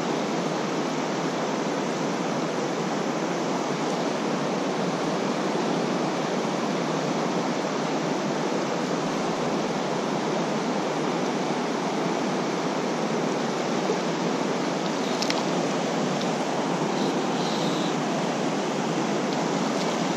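Steady rush of fast river current flowing around a wading angler, close to the microphone.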